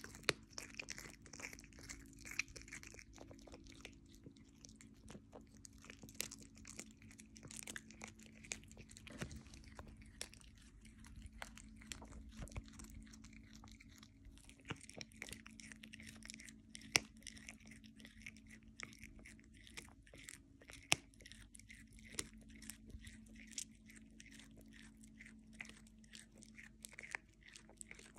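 A cat chewing and tearing at raw black grouse meat, with irregular sharp crunches and clicks of its teeth. A faint steady hum runs underneath.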